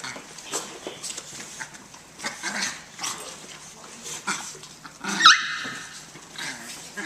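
Puppies scuffling with a grown dog: a run of short, rough dog noises, with one loud, high-pitched puppy cry about five seconds in.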